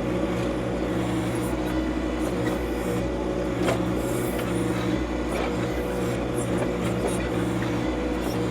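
John Deere 2025R compact tractor's three-cylinder diesel engine running steadily, with a single sharp knock about three and a half seconds in.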